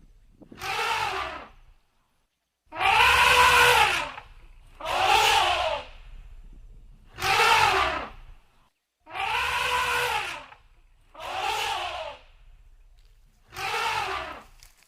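A cat meowing, seven drawn-out calls about a second each, each rising and then falling in pitch, with short pauses between them.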